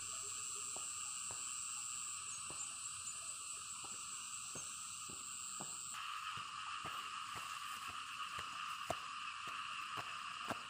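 Steady chorus of calling frogs and insects, whose pitch bands shift at a cut about six seconds in, with light footsteps ticking about twice a second along a dirt path.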